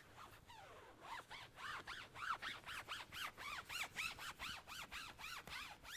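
Foam applicator pad rubbed in short strokes over a vinyl convertible top, squeaking quietly with each stroke, about three to four squeaks a second. The squeaking starts about a second in.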